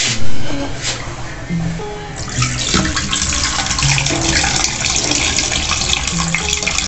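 Soaking water poured off a bowl of red beans through the fingers, splashing into a stainless-steel sink and drain from about two seconds in, after a loud bump just at the start. Background music plays underneath.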